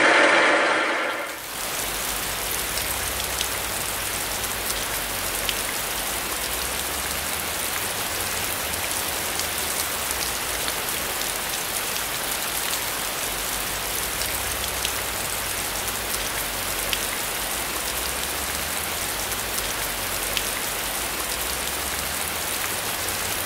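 Cutting coolant streaming and splashing over a milling machine's table and workpiece: a steady, rain-like hiss with scattered small ticks over a low hum. A louder machine sound stops about a second and a half in.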